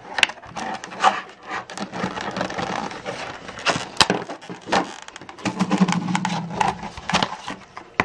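Hard plastic clamshell blister pack being pried open and handled: stiff plastic crackling and scraping, with several sharp snaps, the loudest about four seconds in.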